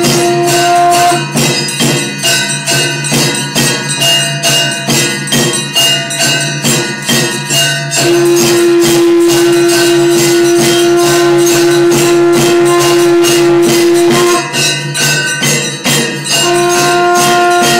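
Conch shell blown in long held notes: one near the start, a steady blast of about six seconds from about eight seconds in, and another starting near the end. Behind it runs fast, steady jangling percussion over a low drone.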